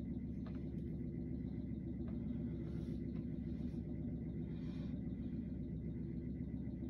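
Steady low room hum with no radio traffic, because the scanner is squelched while it scans between channels. A few faint ticks and two brief soft hisses come near the middle.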